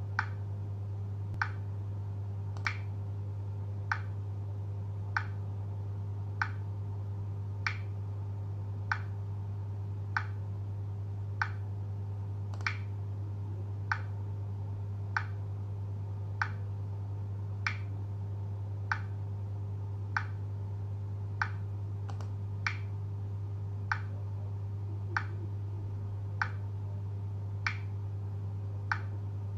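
Sharp clicks at an even pace, about one every 1.25 seconds like a metronome, over a steady low hum.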